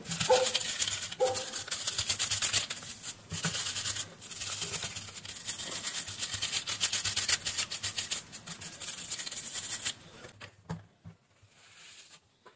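Small brush scrubbing hair and debris out of an electric shaver's plastic head assembly: rapid, scratchy strokes that stop about ten seconds in.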